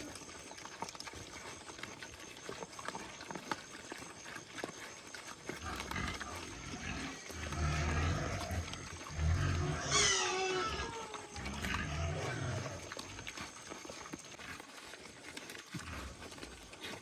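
Pigs grunting in a run of low grunts, with one loud squeal about ten seconds in.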